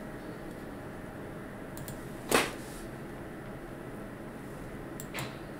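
Steady room hiss with one short sharp knock about two seconds in and a fainter click near the end.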